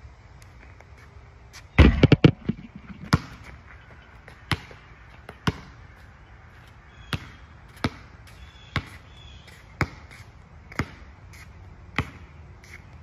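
Basketball bouncing on an outdoor asphalt court: a quick cluster of loud bounces about two seconds in, then slow dribbling, single bounces about once a second.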